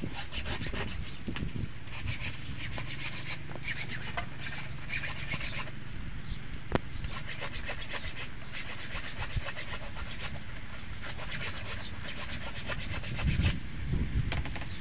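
A knife scraping the scales off a fish on a wooden board, in quick repeated strokes, with a few louder knocks near the end.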